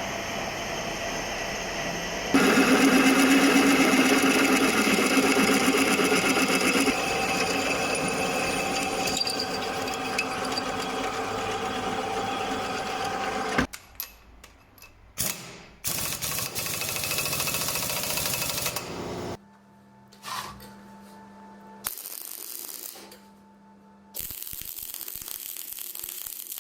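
Workshop power tools running in a series of short clips, the sound changing abruptly at each cut; the loudest, densest stretch comes in the first half.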